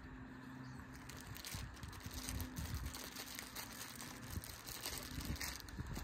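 Faint handling of pressure-washer nozzles: small clicks and rustling as the quick-release nozzles are swapped by hand, with no spray. A low steady hum sits underneath until near the end.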